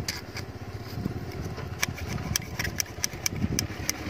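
Light metallic clicks, several a second and irregular, from a feeler gauge being slid in and out of the valve clearance under a motorcycle's rocker arm, over a steady low rumble.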